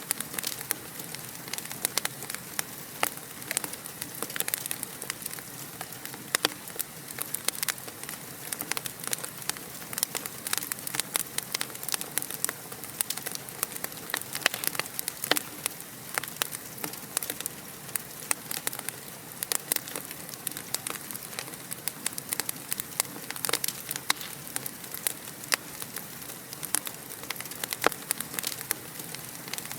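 Wood fire crackling: steady hiss with frequent sharp, irregular pops and snaps.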